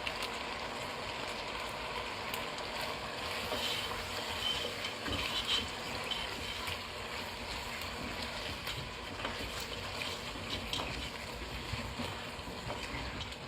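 Goat meat sizzling steadily in a pot with spices and tomato paste, with occasional light clicks.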